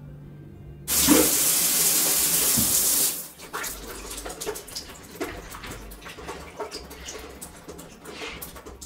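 Water tap turned on about a second in, gushing loudly for about two seconds, then running more quietly with uneven splashing.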